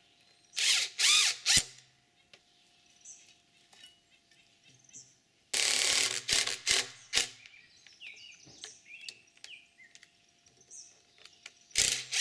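Cordless drill driving screws into the end of a log in three short bursts, about a second in, around six seconds in and again at the very end, its motor whine rising and falling with each run; small clicks and knocks in between.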